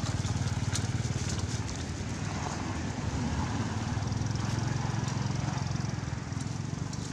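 A small engine running steadily nearby with a fast, even low throb, easing briefly about two seconds in, with faint scattered clicks over it.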